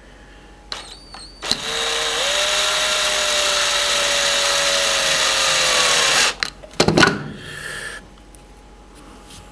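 Power drill-driver screwing a small screw into a plastic mount. A short blip of the motor, then a steady whine for about five seconds that sags slowly in pitch as the screw tightens, then a few sharp clicks after it stops.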